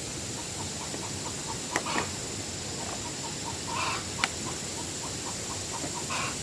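Short animal calls, three of them about two seconds apart, over a steady hiss with a constant high-pitched tone, and a few sharp knocks.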